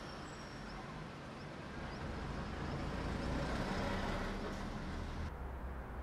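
Outdoor city street ambience: a steady rumble of passing traffic, with an abrupt change in tone about five seconds in.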